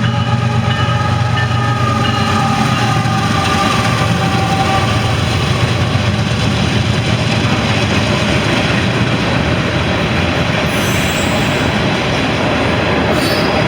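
A loaded CSX mixed freight train's cars rolling past on the rails, a loud, steady rumble and clatter of wheels on track. Two brief high-pitched squeaks come near the end.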